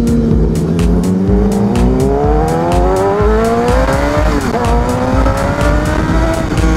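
Sport motorcycle engine accelerating under load, its pitch rising steadily, dropping briefly at a gear change about four seconds in, then climbing again. Background music with a steady beat plays underneath.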